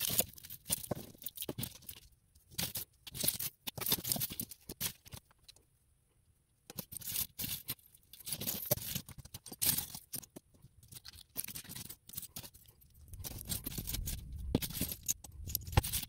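Costume jewelry being handled and untangled: metal chains and beaded necklaces clink, rattle and scrape against each other and the mat in quick, irregular clicks, with a short pause about five seconds in.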